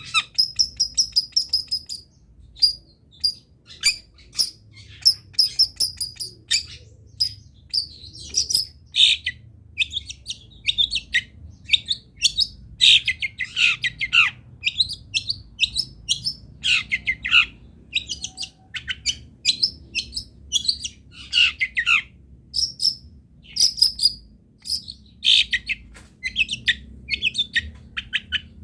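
Long-tailed shrike (cendet) singing a fast, varied song of chattering phrases and rapid trills, with only short pauses between phrases.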